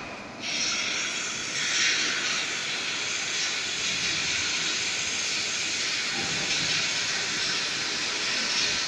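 A steady, even hiss that starts about half a second in and grows a little stronger near two seconds in.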